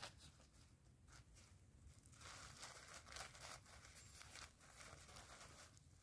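Faint, irregular crackling and ticking of a small twig fire as it catches and the flames take hold.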